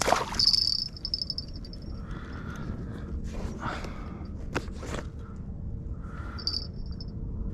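A sharp knock and rustle at the start, then a high, rapid chirping trill that comes back twice more, over a steady low background with a few clicks.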